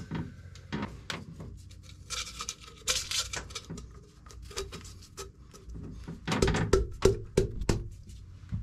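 Tape peeling off a roll with a hiss, about two to three seconds in, as it is wrapped around a small wooden plug. Near the end comes a quick run of knocks and clicks as the plug is handled and pushed into the shaft coupling.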